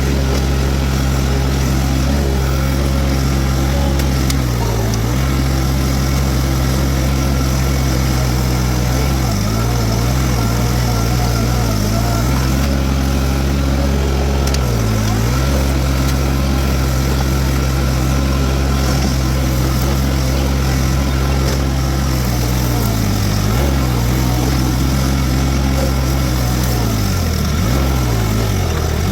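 Toro TX1000 mini skid steer's diesel engine running steadily at working speed while driving a hydraulic brush mower, with the steady hum of the cutter. The engine note sags briefly several times, about a second each time, as it comes under load.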